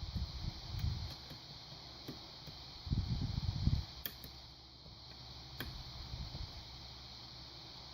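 Lock pick and tension wrench working the pins of a cross lock: a few faint, sharp metallic ticks, with low rumbling handling noise from the tools and lock at the start and again about three seconds in.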